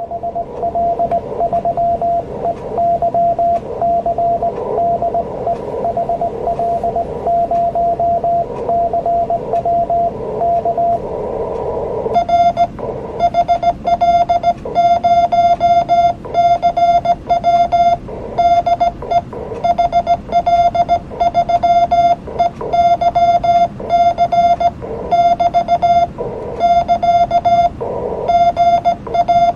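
Morse code (CW) in an amateur radio contact: dits and dahs of a single tone keyed on and off. For the first twelve seconds or so the tone comes through receiver hiss, as a signal off the air. After that it turns louder and cleaner, the sidetone of the operator's own sending on a Heathkit SA-5010 paddle keyer, with bursts of band hiss between the characters.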